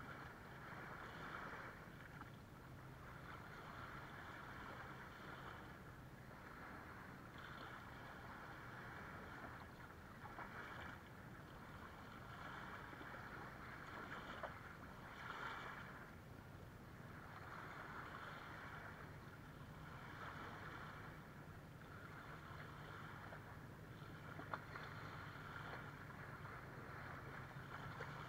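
Small waves lapping and washing over sand and rocks at the shoreline, swelling and fading every couple of seconds, over a steady low hum. Near the end comes a single sharp click.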